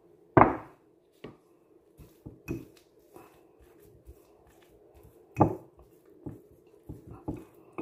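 A ceramic bowl set down on the counter with a thump, the loudest sound, then a fork stirring crumbled cheese and chopped coriander in it: scattered clicks and scrapes of the fork on the bowl, with one louder knock about five seconds in.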